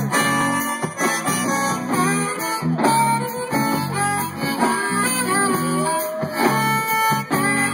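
Live band playing an instrumental intro: rhythmic guitar strumming over electric bass and drums.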